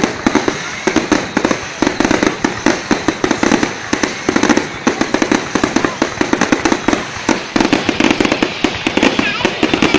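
Fireworks display: a dense, continuous barrage of rapid bangs and crackles, many each second, with no let-up.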